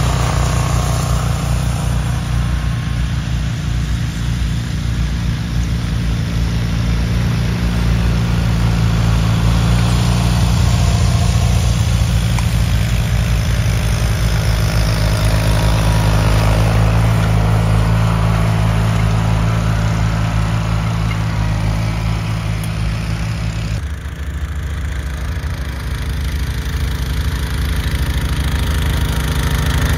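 Garden tractor engine running steadily, with an abrupt change in the sound about three-quarters of the way through.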